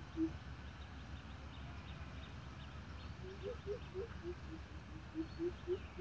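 Greater coucal's deep hooting calls. A run of evenly spaced low hoots ends just after the start. About three seconds in, a new series of hoots begins, stepping up and down in pitch and growing louder toward the end.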